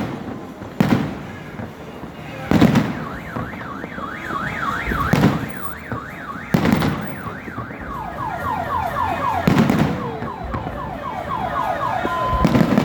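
Fireworks bursting, booming every couple of seconds. Under them a car alarm cycles through its tones: a rapid up-and-down warble, then a run of quick falling chirps, then a steady tone near the end.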